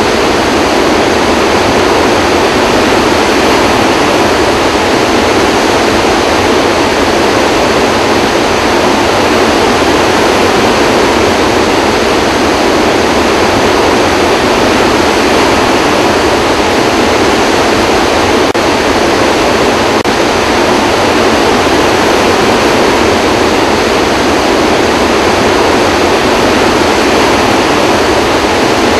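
Floodwater pouring from the Kaw Dam spillway gates, all eight open, into the churning stilling basin below: a loud, steady rush of water.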